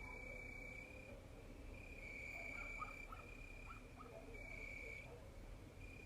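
Crickets trilling on one steady high pitch, in long trills of a second or more broken by short gaps, with faint short calls lower down behind them.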